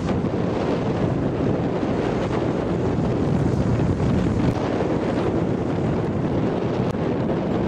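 Wind blowing across the microphone, a steady noise that stays strongest in the low range.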